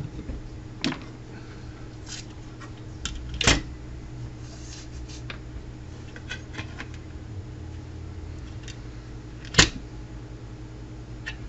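A few sharp, isolated taps and clicks of tools and parts being handled on an electronics workbench, over a steady low hum.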